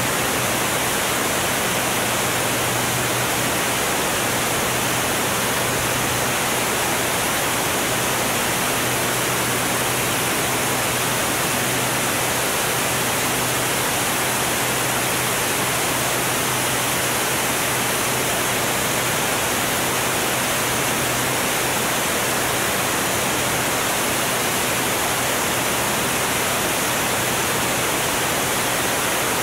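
Steady rush of wind and engine noise on a camera mounted outside a Formula One class race plane in flight, with a low steady drone underneath. The level does not change throughout.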